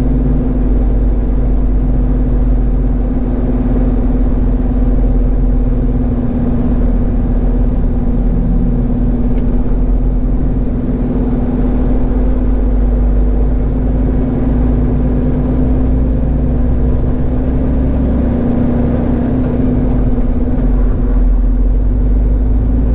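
Peterbilt 389 semi truck's diesel engine running steadily under way, a constant low hum heard from inside the cab.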